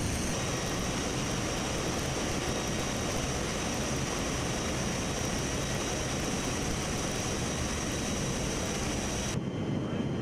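Loud, steady rush of wind and turbofan engine noise through the open paratroop door of a C-17 Globemaster in flight, with a steady high whine over it. About nine seconds in it cuts abruptly to the duller, quieter engine drone heard inside the cabin.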